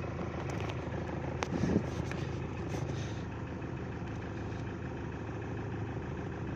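Mahindra Scorpio idling, with a knocking rattle ("ghat ghat") from a loose part inside the dashboard, with one louder knock about one and a half seconds in. The rattle is the sign of rotted foam and clips that no longer hold the part in place.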